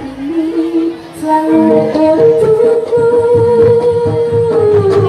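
Live East Javanese Jaranan music: a melody line held on long notes, one sustained for about three seconds and dipping at its end, over a steady beat of low drum strokes.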